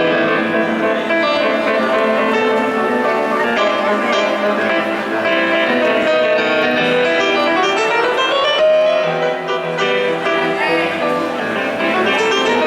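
Piano music with many held notes, and a rising slide in pitch about eight seconds in.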